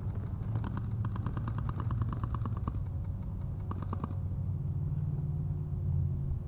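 Airsoft gun firing: a rapid, even string of clicking shots lasting about two seconds, then a short burst of three a little before four seconds in, over a steady low rumble.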